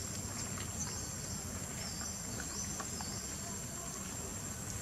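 Forest insect ambience: a steady high-pitched drone with a few short high chirping calls over it, and a low steady rumble underneath.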